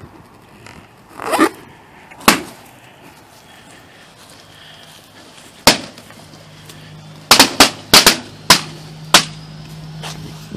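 Latex balloons popping one after another on a lawn: about ten sharp bangs, a few spaced out at first, then a rapid string of pops. The grass punctures the balloons.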